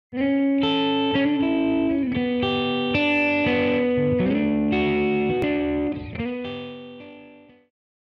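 Short instrumental intro music: a run of held notes changing about twice a second, fading out over the last two seconds.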